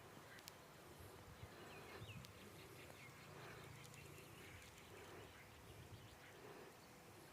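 Near silence: faint outdoor ambience with a few brief, distant bird chirps a couple of seconds in.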